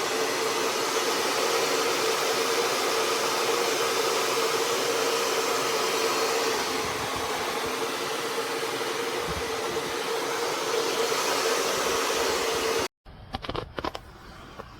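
Hair dryer blowing into a soft bonnet hood attachment: a steady rush of air with a motor hum. It cuts off abruptly about thirteen seconds in, and a few faint clicks follow.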